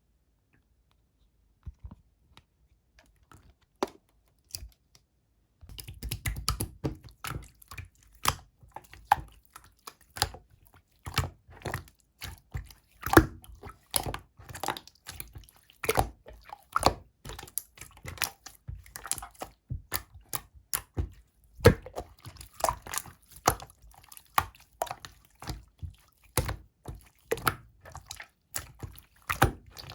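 Slightly runny clear slime being squished and worked by hand: wet clicks and pops, a few scattered ones at first, then a dense, unbroken run from about six seconds in.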